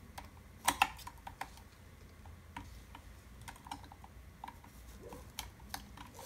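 Light plastic clicks and taps as a small plastic motor cover is pressed and worked onto a small robot arm, with a sharper pair of clicks just under a second in.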